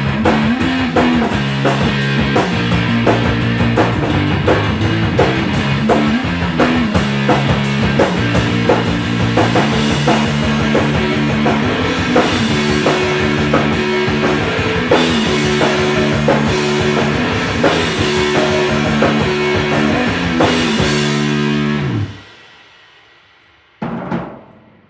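Rock music with guitar and drums, an instrumental stretch of a song, ending abruptly about three seconds before the end. A short burst of sound follows near the end.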